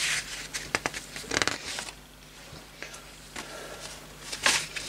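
Paper pages of a model kit's instruction booklet being handled and turned: short rustles and crinkles with a few sharp clicks, the strongest near the end.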